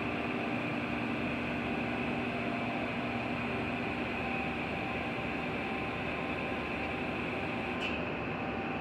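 Steady mechanical hum with a few constant tones and a hiss above them. A short click comes about eight seconds in, and the highest part of the hiss drops away after it.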